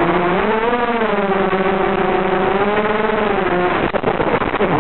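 ZMR v1 250-size racing quadcopter's brushless motors and propellers on a 3S battery, buzzing loudly and rising and falling in pitch with the throttle. About three and a half seconds in the steady buzz breaks up into irregular crackling and rattling as the quad goes down into tall grass.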